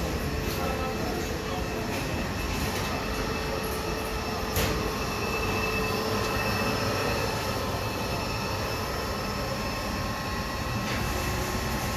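Stainless-steel tahini grinding machine running steadily: an even mechanical hum with a thin high whine over it. A single sharp knock sounds about four and a half seconds in.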